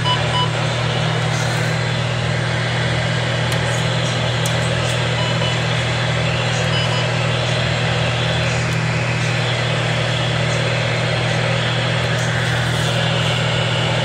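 A portable NOAA weather radio putting out steady static with a strong low hum, the broadcast not coming through clearly.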